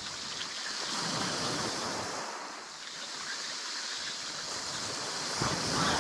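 Surf washing onto the shore, rising in a swell about a second in and again near the end.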